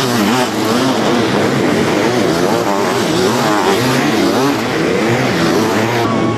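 Sidecar motocross outfits racing, several engines overlapping. Their pitch rises and falls over and over as the throttle is opened and shut.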